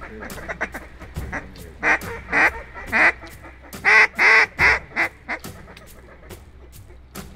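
A run of loud, nasal mallard-style duck quacks, about seven in quick succession a couple of seconds in, with rapid clicking chatter before and after.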